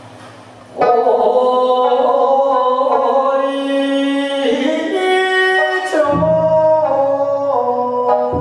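A man singing long held notes in a traditional Japanese style, mostly unaccompanied, starting loudly just under a second in. About six seconds in, a deep taiko drum stroke booms under the voice.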